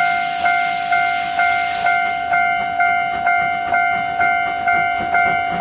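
Steam locomotive whistle blowing a single steady note, pulsing about twice a second, with a hiss of steam in the first couple of seconds.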